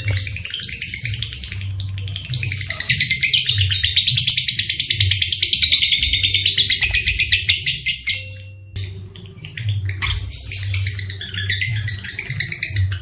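Lovebird chattering in fast, high chirps that run together into one long rapid trill of about four seconds, then a short pause and more chattering near the end. This long trill is the 'ngekek' call of a lovebird in breeding condition.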